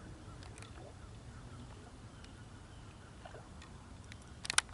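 Quiet open-water ambience: a steady low rumble with a few faint scattered clicks, and a quick run of sharp clicks near the end.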